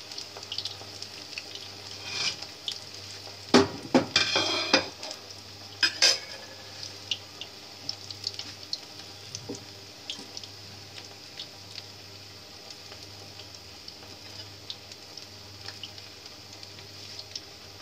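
Battered cauliflower florets sizzling and crackling in hot oil in an iron kadhai, with many small pops. A metal slotted spoon stirring them clanks against the pan several times between about three and a half and six seconds in.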